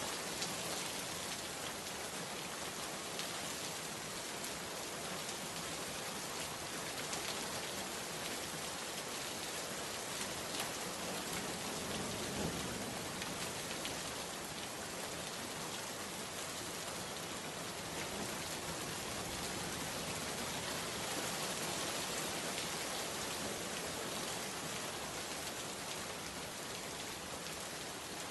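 Steady rain falling and pattering on surfaces, an even hiss with scattered individual drops ticking through it.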